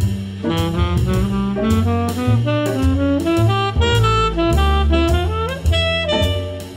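Background music: instrumental jazz, a lead melody line over a bass line and a steady drum beat.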